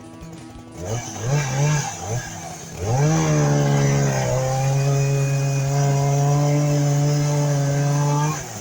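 Chainsaw revved in a few short blips, then held at high revs for about five seconds, dropping back to idle near the end.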